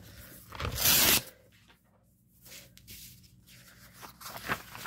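Packaging torn open in one short rip about a second in, followed by quieter rustling and handling.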